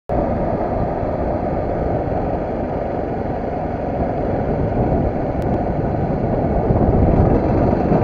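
Motorcycle riding along at steady speed, heard from its own onboard camera: a dense engine and wind rush, growing slightly louder near the end.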